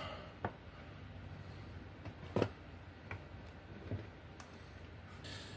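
A few light clicks and taps of small screws and a precision screwdriver being handled and set down on a wooden desk, the loudest about two and a half seconds in, over a low steady hum.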